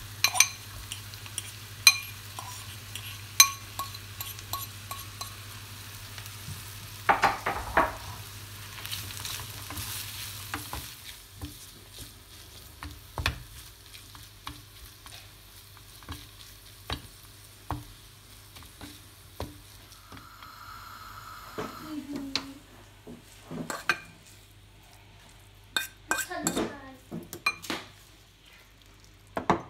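Flaked fish frying with onions and green chillies in a metal pan, sizzling as it is stirred, with sharp metal clinks in the first few seconds as the fish is knocked out of a bowl into the pan. The sizzling dies down about eleven seconds in, leaving scattered scrapes and taps.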